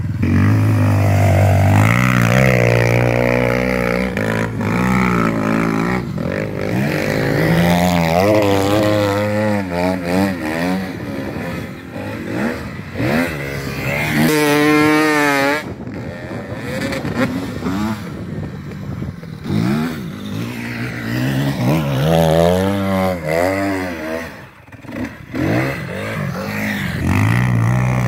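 Off-road vehicle engine revving up and down over and over, its pitch repeatedly rising and falling, with a quick wavering in pitch about halfway through.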